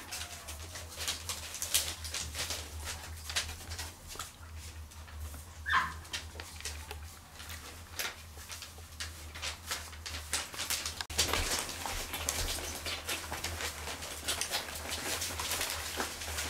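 Cotton de Tulear puppies playing on newspaper: crackling paper and paws scrabbling, getting busier in the second half. A single short, high puppy whimper comes about six seconds in.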